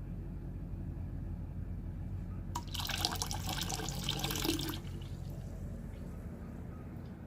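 Coolant contaminated with engine oil, turned to a muddy sludge, being poured out and splashing for about two seconds starting a third of the way in, over a steady low hum.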